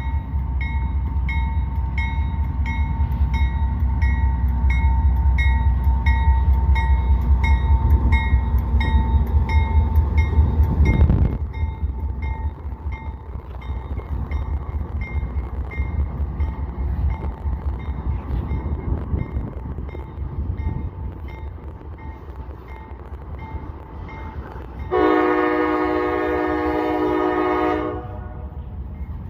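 Train rumbling heavily for about eleven seconds, then dropping away suddenly, with a steady dinging about twice a second running on underneath. Near the end comes one long blast, about three seconds, on a multi-chime train horn.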